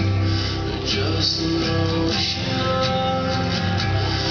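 Recorded music playing, with guitar over a steady bass.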